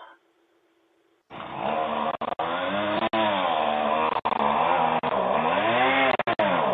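A small engine running and revving, starting abruptly about a second in, its pitch rising and falling slowly, with brief dropouts in the sound.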